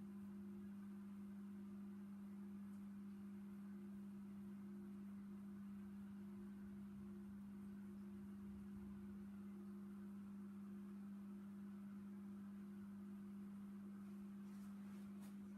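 Faint, steady low hum with a single pitch from running aquarium equipment, unchanging throughout.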